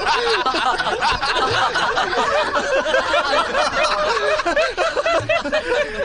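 A group of people laughing and chattering together, many voices overlapping without a break.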